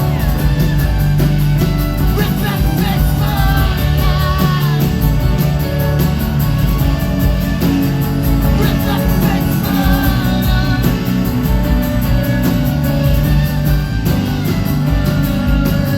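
A live rock band playing an instrumental passage of a slow song, with a wavering lead melody over steady bass and guitars.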